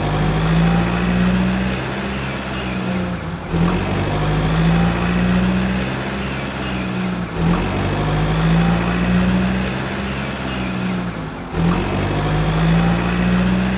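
A steady low droning hum that swells and dips in a repeating loop about every four seconds, like a looped engine-sound track.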